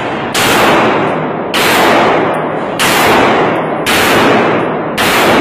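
Handgun shots fired one after another, five of them at about one a second, each ringing on in the echo of an indoor concrete range.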